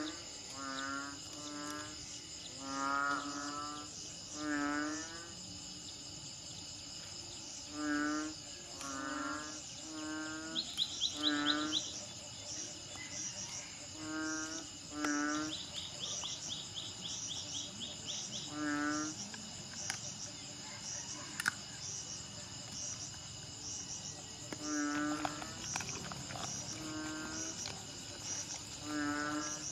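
Steady chorus of crickets or cicadas with a regularly pulsing high note, over which an animal gives about a dozen short pitched calls, some in pairs, and twice a fast high ticking trill runs for a second or two.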